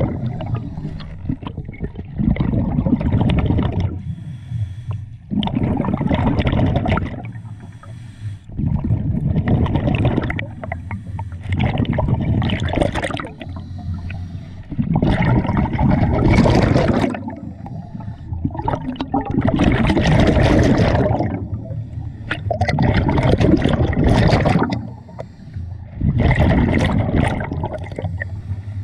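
Scuba diver breathing through a regulator underwater: a burst of exhaled bubbles about every three to four seconds, with quieter gaps for the inhale between, about eight breaths in all.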